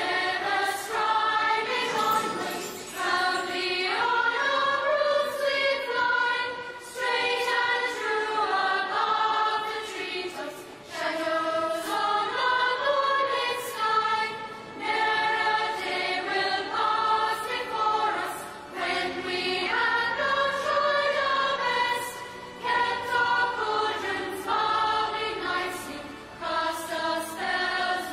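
Theme music: a choir singing sustained notes over an instrumental backing, with frequent sharp percussive strikes.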